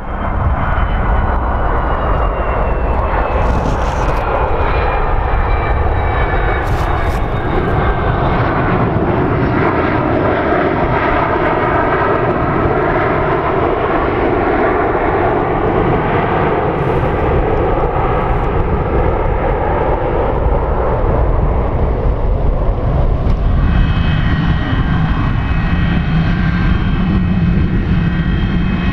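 Boeing 737-200's Pratt & Whitney JT8D turbofans during landing rollout: a loud, steady roar, with whines that fall in pitch through the first half. A steadier higher whine comes in about three-quarters of the way through.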